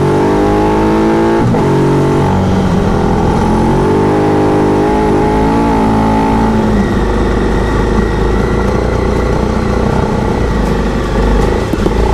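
Motorcycle engine accelerating through the gears: its pitch climbs, drops sharply at an upshift about a second and a half in, then climbs again in steps. After about seven seconds it settles into steadier, noisier running.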